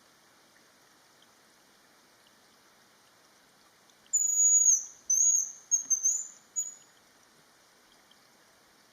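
Hazel grouse giving its high, thin whistled song: a long whistle about four seconds in, followed by several shorter notes, over a faint steady hiss.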